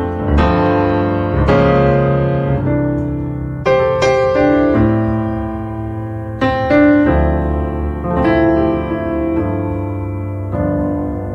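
Slow piano music: sustained chords, a new one struck every second or two, with a few single notes.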